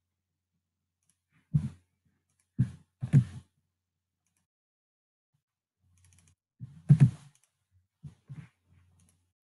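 Sharp clicks and taps of a computer mouse and keyboard, a few together about one and a half to three and a half seconds in and another few about six and a half to eight and a half seconds in.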